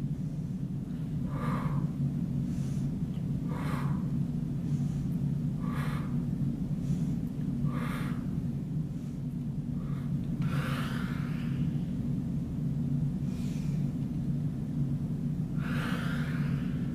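A woman breathing audibly in time with her exercise repetitions: short breaths about every two seconds, then two longer ones later. A steady low hum runs underneath.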